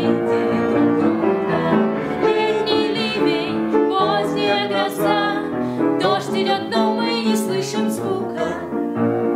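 A young woman's voice singing held, wavering notes with vibrato over piano accompaniment.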